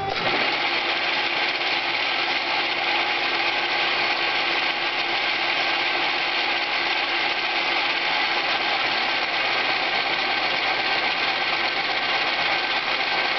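Atlas QC54 metal lathe running steadily under load as a carbide bit takes a deep roughing cut on a turning metal bar, the motor and drive whine mixed with the hiss and chatter of the cut.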